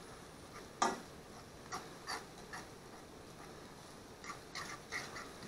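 A utensil scraping and tapping against a frying pan as fried rice is stirred and its lumps broken up, in short irregular strokes, the loudest about a second in.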